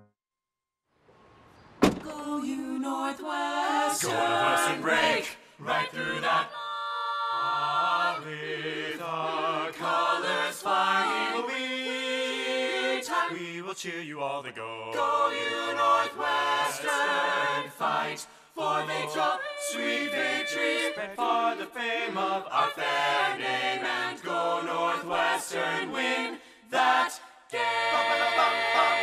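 A group of voices singing, choir-like, as the music of a promotional spot. The singing starts abruptly about two seconds in, after a moment of near silence.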